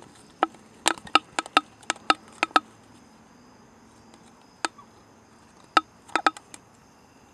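Aluminium soda can used as a hand-line spool, handled just after a cast: a quick run of about ten sharp metallic ticks in the first couple of seconds, a single tick near the middle and a short cluster near the end. Insects trill faintly and steadily underneath.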